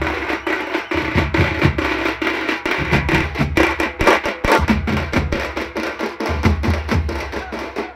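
A troupe of drummers beating large stick-played drums in a fast, driving rhythm, rapid sharp strokes over deep booming beats.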